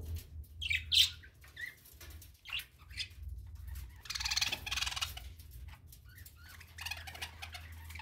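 A flock of budgerigars chirping and chattering in short, high calls. A sharp loud chirp comes about a second in, and a longer burst of warbling chatter comes about halfway through. A low steady hum runs underneath.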